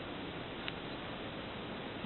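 Steady low background hiss with a single short click about two-thirds of a second in.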